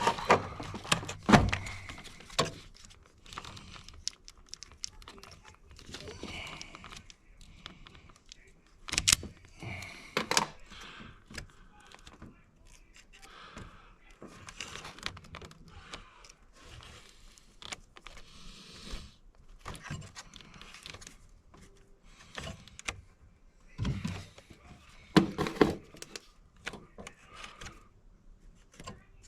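Hand tools and metal parts being handled during car wiring repair: scattered clicks, clinks and knocks, louder about a second in, around nine seconds and again near the end, with quieter rustling between.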